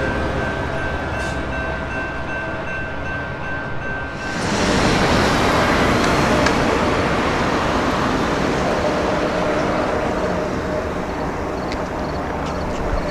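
Union Pacific diesel freight locomotives running, with a steady high ringing over the engine sound, typical of a grade-crossing bell. About four seconds in the sound cuts abruptly to a louder rumble of a freight train's diesels and wheels on the rails as it approaches.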